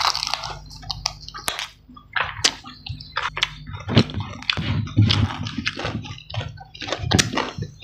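Close-up eating sounds: mouth smacking and chewing as spicy chicken knuckles and rice are eaten by hand, in a quick irregular run of clicks and smacks.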